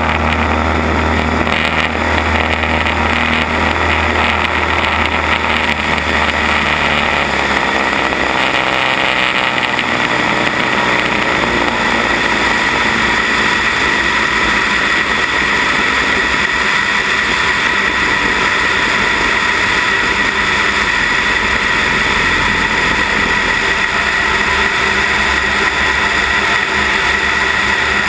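Cessna 172 Skyhawk engine and propeller running during a runway roll, heard from a camera mounted under the wing, with steady wind rush on the microphone. The low engine drone drops back about eight seconds in, and a steady high whine comes up over the second half.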